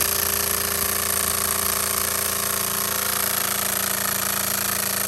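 DeWalt cordless drill running steadily at full power on the steering wheel's retaining bolt, trying to break it loose.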